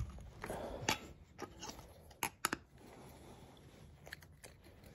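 A pointed metal tool piercing and working a hole in a thin metal mason jar lid: a short scrape, then scattered small metallic clicks over the next two seconds, and two more clicks near the end.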